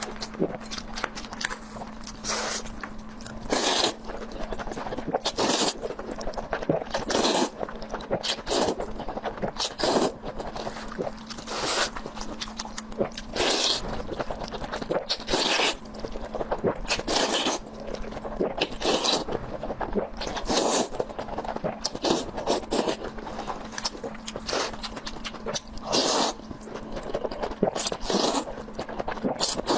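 Close-miked eating sounds of someone eating a braised chicken drumstick: irregular wet chewing, biting and mouth noises, a stroke every second or so. A faint steady hum runs underneath.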